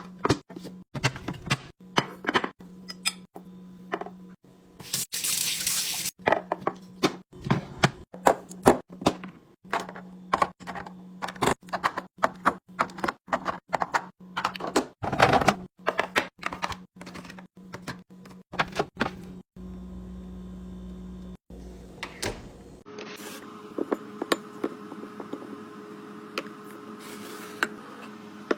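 Food containers and packages being handled and set down while a fridge is restocked: many quick knocks, clicks and clatters of plastic and glass, over a steady low hum. A short rushing sound comes about five seconds in.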